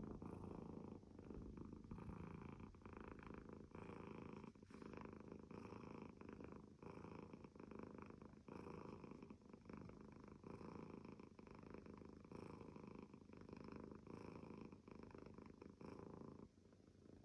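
Domestic cat purring softly, the purr rising and falling with each breath about every one to two seconds.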